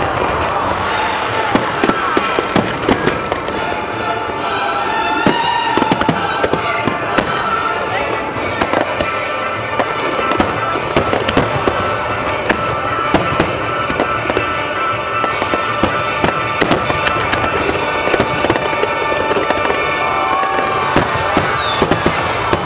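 Aerial fireworks display going off in rapid, continuous succession: many sharp bangs and crackles one after another, with music playing beneath them.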